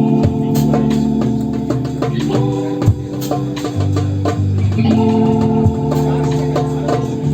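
Live jam music: held organ-like keyboard chords that change every two to three seconds, with a few drum hits.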